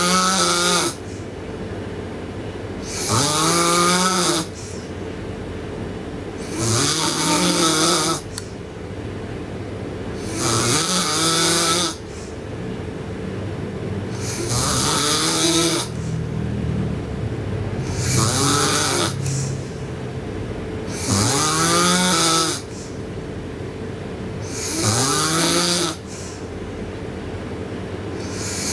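A sleeping girl snoring loudly, about eight snores repeating every three and a half seconds or so, each rising in pitch as it goes. A faint steady hum runs underneath.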